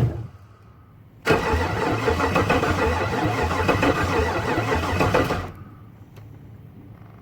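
Swapped-in LS V8 engine cranked by the starter and catching briefly on fuel poured into the intake, running unevenly for about four seconds before stopping abruptly.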